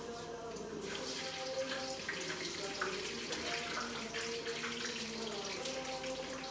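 Water running and splashing, starting about a second in, over soft background music with held notes.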